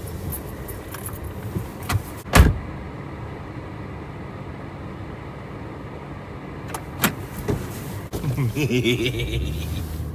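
Car door shut with a solid thump about two and a half seconds in, after which outside noise is cut off and only the car's low hum is left in the cabin. A few seconds later a smaller knock comes and the outside air noise returns.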